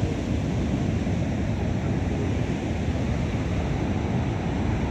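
Heavy surf breaking steadily on a sandy beach, a continuous wash of noise with wind rumbling on the microphone.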